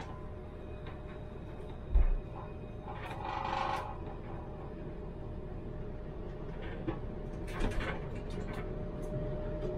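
Tram standing at a stop: a steady electrical hum over a low rumble, a dull thump about two seconds in, a short electronic tone a second later, and a few clicks near the end.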